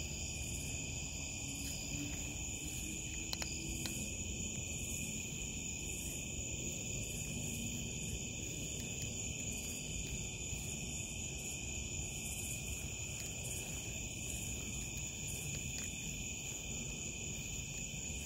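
Night insect chorus: crickets trilling steadily in several high, unbroken tones, with a faint regular pulsing above them.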